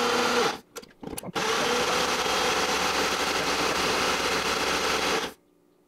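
Ninja BL660 blender's motor running with the small Nutri Ninja cup, blending fibrous plant stalks into a green liquid. It runs briefly, stops, gives two quick pulses, then runs steadily with a whine for about four seconds and cuts off near the end.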